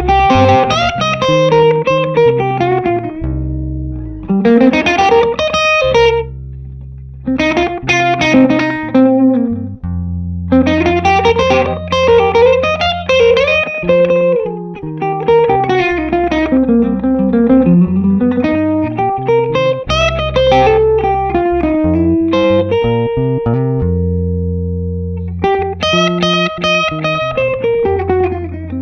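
Electric guitar playing bluesy lead phrases with string bends and vibrato, in bursts separated by short pauses, over a backing of long held bass notes.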